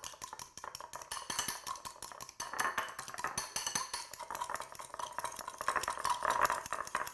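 Fork beating egg yolks in a glass bowl, the metal tines clicking rapidly and steadily against the glass.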